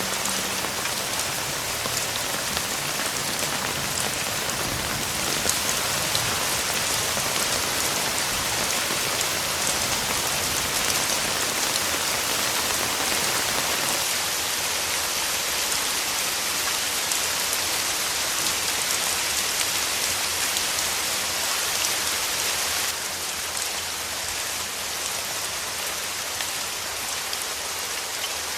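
Steady rain, a dense even patter of drops falling on a surface. It drops a little in level about 23 seconds in.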